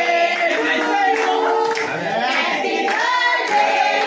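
A group of people singing together, with hands clapping along.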